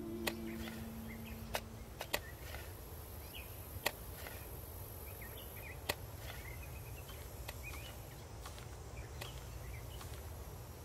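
Digging tools knocking into the ground of a grave plot: several sharp knocks at irregular intervals, over small birds chirping and a low steady outdoor rumble.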